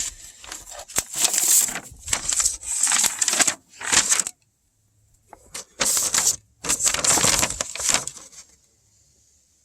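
Rustling, scraping and clicking from a plastic wiring connector and its wires being handled close to the microphone, in several short bursts with quiet gaps between them.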